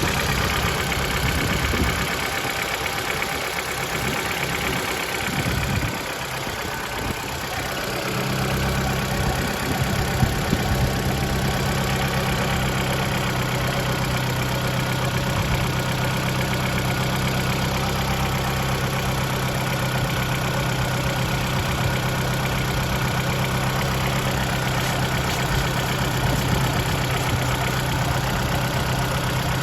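Mitsubishi 4B11 2.0 inline-four engine idling steadily with a dull knock from the timing-chain side, which the owner suspects is the valves, while mechanics variously blame the timing chain or the cam phasers. The deep part of the hum weakens about two seconds in and returns at about eight seconds.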